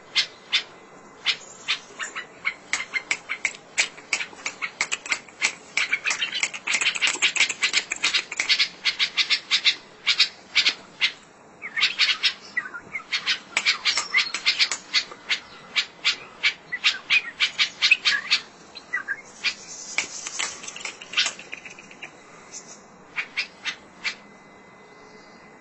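Bulbul calling in rapid strings of short, sharp, chattering notes, with brief pauses about 11 s in and again around 19 s.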